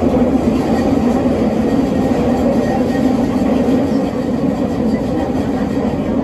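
Fukuoka City Subway 3000A series linear-motor metro car running through a tunnel, heard inside the car: a steady, loud rumble of wheels on rail and tunnel roar.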